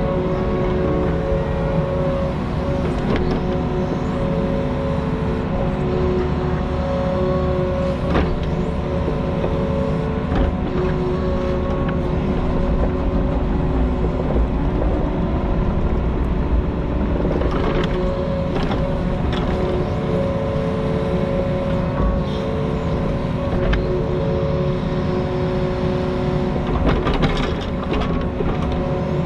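Diesel engine of compact construction equipment running steadily at working speed, with a steady tone over the rumble and scattered clanks and knocks as the machine works.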